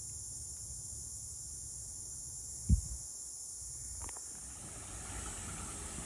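Steady high-pitched insect chorus in woodland, with a single low thump about three seconds in.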